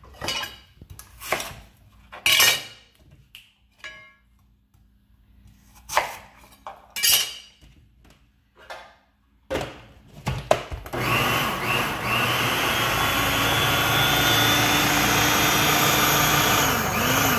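Cut plantain pieces are dropped into a plastic food processor bowl with scattered knocks and clunks. About eleven seconds in, the food processor motor starts and runs steadily, chopping the pieces into alcapurria batter (masa).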